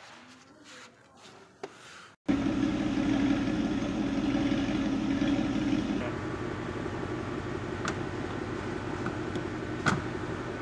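Ford Mustang GT running steadily, its 5.0 V8 at idle, starting abruptly about two seconds in. A louder hum sits over it for the first few seconds, then it settles to a lower steady level, with two light clicks near the end.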